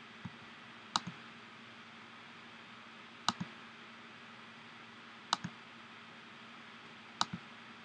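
Computer mouse clicking: four sharp clicks about two seconds apart, each followed at once by a softer release click, over a steady low hum.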